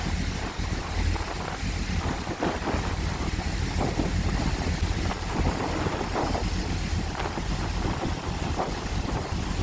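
Wind buffeting the microphone over the steady low rumble of the passenger ferry Diagoras under way, with the rush of the sea.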